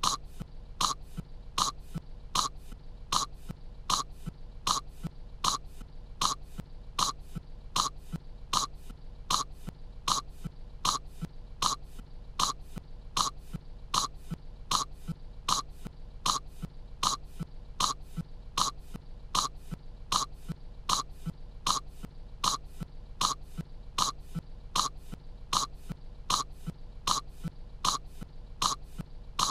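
A cartoon girl's short, dry cough, looped over and over at an even pace of a bit under two coughs a second, as if kettle corn is caught in her throat.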